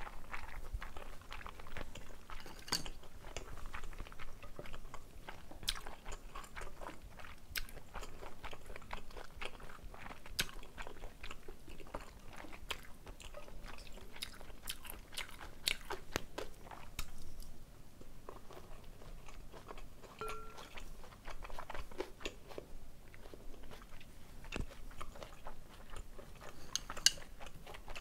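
Close-up chewing and mouth sounds of a person eating jajangmyeon made with glass noodles, pork and sliced green chilies, with many crisp crunches and wet clicks. There is a single sharp loud click near the end.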